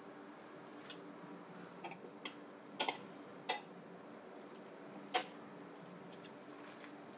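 Metal feeding tweezers clicking and tapping against the glass floor of a tank as mealworms are set down: about six short sharp clicks, the loudest a quick double tap near three seconds in.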